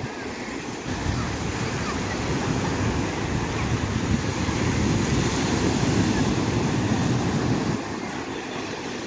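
Sea surf breaking and washing up a sandy shore, with wind buffeting the microphone in a low rumble. The rush builds after about a second, is loudest in the middle, and eases near the end.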